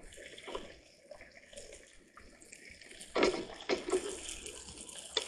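Hot dogs cooking in a little water in a nonstick pan on a portable butane gas stove. The sound grows louder for a couple of seconds about three seconds in.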